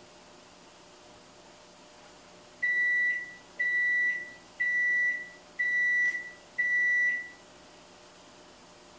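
An electronic beeper sounding five times, about once a second, each beep a steady high tone just over half a second long.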